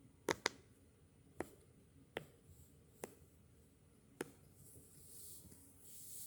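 Silicone pop-it fidget toy bubbles being pressed one at a time, giving six separate sharp pops: two close together near the start, then single pops spaced about a second apart.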